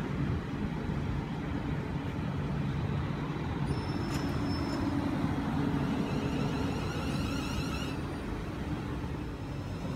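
Class 360 electric multiple unit at the platform, giving a steady low rumble and hum. A brief high tone sounds about four seconds in.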